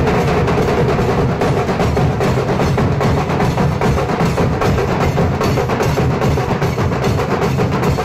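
Nasik dhol ensemble: many large barrel dhols beaten with sticks, with a sharper tasha drum on top, pounding out a fast, unbroken rhythm.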